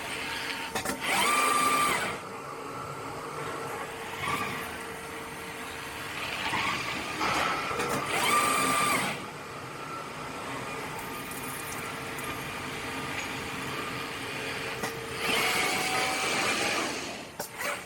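Stone-working CNC machining centre running over a steady hum, with three bursts about six to seven seconds apart (one near the start, one in the middle, one near the end) in which a motor whines up, holds its pitch and winds back down.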